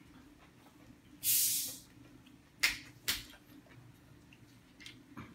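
Hand-eating noises at a shared table: a short hiss about a second in, then two sharp clicks about half a second apart, and a few faint ticks near the end.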